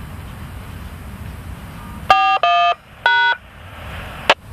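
Three short touch-tone beeps over a railway scanner radio, typical of DTMF tones keyed on the railway radio channel, starting a little over two seconds in; a sharp click follows near the end, over a low background rumble.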